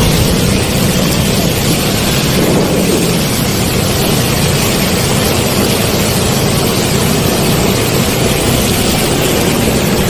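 Steady rush of road noise riding through a flooded street: motorcycle and traffic engines with water splashing under the wheels, an even noisy roar with no breaks.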